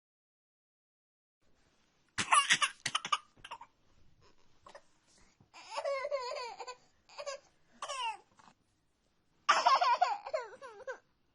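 A young child laughing and giggling in several separate bursts, the first and last the loudest.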